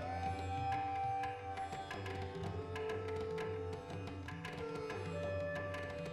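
Instrumental background music in an Indian classical style: a melody with sliding notes over a steady hand-drum beat.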